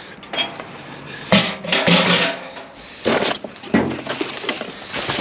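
Rummaging through discarded junk: items being moved and dropped in a handful of short clattering, rustling knocks.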